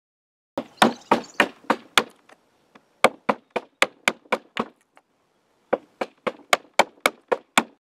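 Handsaw cutting through spruce gate timber in quick, regular strokes, about three or four a second, in three runs with short pauses between.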